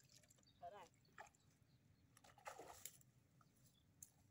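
Faint sloshing and splashing of shallow ditch water as a person wades with a plastic basket and steps out onto the bank. A brief faint voice comes a little under a second in.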